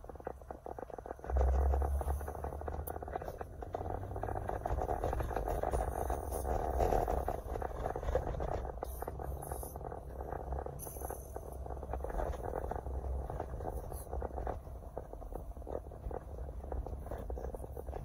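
Car running along a city street, heard from inside the cabin: a steady low rumble of engine and tyre noise that rises about a second in.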